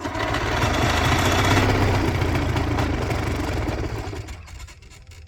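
Quicksilver ultralight aircraft's two-stroke engine catching on the start and running for about four seconds, then sputtering out and dying with a few last coughs: a hard-starting engine that won't keep running.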